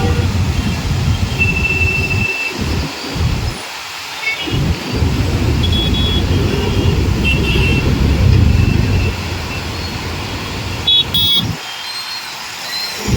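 Road traffic on a bridge with a few short distant horn toots, under a heavy low rumble that cuts in and out, like wind buffeting a phone microphone.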